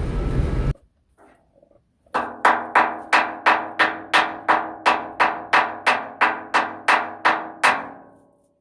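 A hammer striking ringing metal in a fast, even rhythm, about three blows a second and some eighteen in all, after vehicle noise cuts off shortly after the start.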